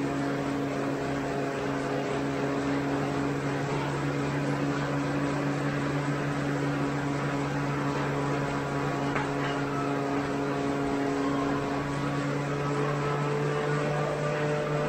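Bicycle on an indoor trainer: the rear wheel spinning against the trainer's roller as the rider pedals hard, giving a steady whirring drone that rises slightly in pitch near the end.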